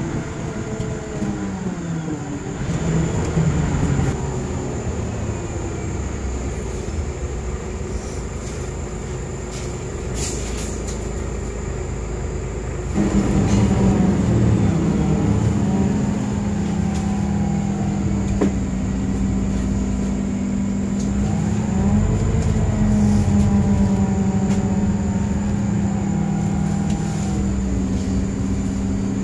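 City bus engine and drivetrain heard from inside the cabin while under way, their pitch rising and falling as the bus speeds up and slows. A steady low drone comes in about halfway through and holds.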